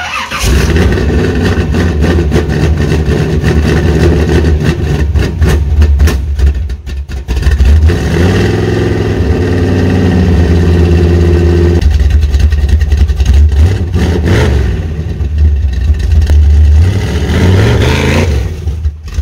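1985 Chevy C10's ZZ4 350 small-block V8 running loudly through long-tube headers and Spintech Pro Street 6000 mufflers. The revs rise and fall a few times, and near the end it revs up as the truck pulls away.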